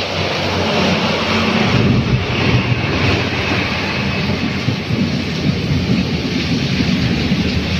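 Steady rain hissing, with a truck's engine rumbling heavily as it drives past, its tyres swishing through the water on the flooded road. The low rumble builds about a second and a half in.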